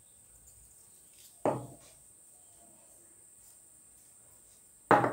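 Two sudden knocks from a plastic LED bulb housing being handled and fitted: one about a second and a half in, dying away quickly, and another at the very end. A faint steady high-pitched tone sits under them.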